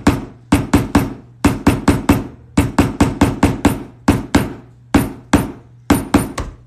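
A hammer striking a leather hole punch about twenty times in quick bursts, each strike sharp with a short ring, driving the punch through two folded layers of leather for a rivet hole; it has not yet gone through.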